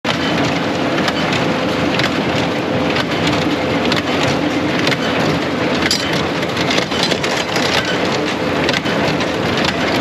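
Old small square hay baler running behind a compact tractor: a loud, steady mechanical clatter with a faint steady engine hum under it.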